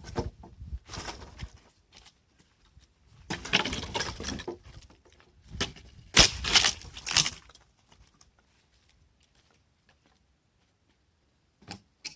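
Dry sticks and brush rustling and crackling in three bursts as they are handled, then near quiet with one short click near the end.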